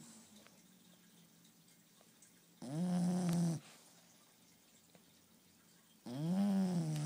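Sleeping bulldog snoring: two drawn-out, pitched snores about three and a half seconds apart, each about a second long, the second rising and then falling in pitch.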